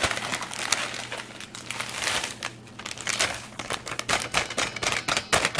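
Plastic inner bag of Funfetti cake mix crinkling and crackling as the dry powder is poured out of it into a stainless steel mixing bowl.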